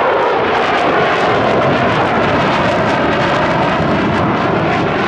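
Mitsubishi F-2 fighter jets passing overhead in formation, the loud, steady roar of their turbofan engines slowly falling in pitch as they go by.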